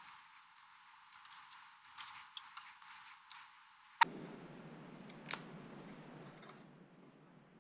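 Faint scattered clicks and taps as metal binder clips and small parts are handled on the model hull, with a sharper click about four seconds in and another a little later over a faint steady hiss.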